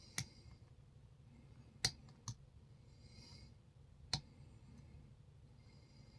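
Lock pick working in a Hugo GTA38 40 mm aluminium pin-tumbler padlock: four sharp clicks, two of them close together about two seconds in. The picker is working the pins and feeling for counter rotation.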